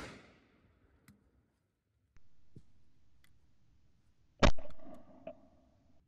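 Shotgun shot at a driven pheasant: one sharp, loud report a little past two-thirds of the way in, fading out in echo over about a second, with a fainter crack just under a second after it. The echo of an earlier shot is dying away at the start.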